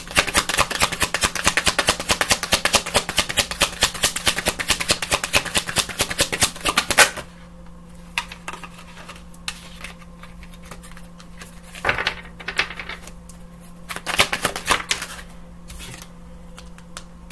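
A deck of oracle/tarot cards being shuffled by hand: a fast run of card-edge clicks for about seven seconds, then two shorter bursts of shuffling later on.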